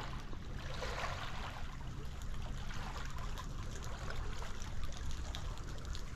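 Outdoor ambience on a saltwater fishing pier: wind rumbling on the microphone over the rush of moving water, with a few faint ticks.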